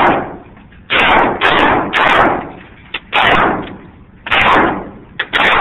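A handgun firing about seven shots at an uneven pace, half a second to just over a second apart. Each is a loud crack that rings on in the echo of an indoor shooting range.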